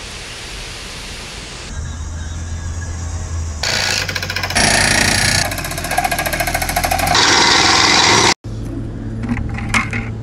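Rushing noise of heavy rain and wind, then a compact hydraulic machine running loudly with a rapid rattling hammering. The machine cuts off suddenly near the end, followed by a few clicks and scrapes.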